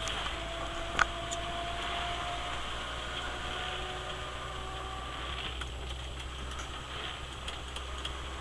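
Steady driving noise inside a moving truck cab on a wet highway: a low engine hum under an even hiss of tyres on the road, with a faint whine. A single sharp click about a second in.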